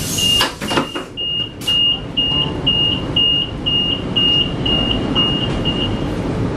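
Train exterior door opening with a few mechanical clicks, under a high-pitched warning beep repeating about twice a second that stops about six seconds in. Low steady hum of the train underneath.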